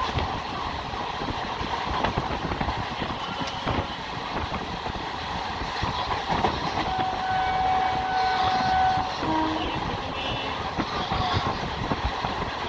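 Train running along the track, heard from on board: a steady rumble with clicks over the rail joints. About seven seconds in, a horn sounds one steady note for about two seconds.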